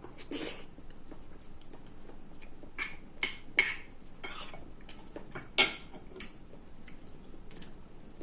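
Close-up eating sounds: cutlery clinking against a plate and chewing, in scattered short clicks, the sharpest about five and a half seconds in.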